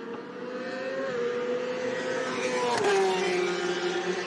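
Racing motorcycle engine running at a steady, slowly rising pitch that grows louder, then drops sharply in pitch about three seconds in.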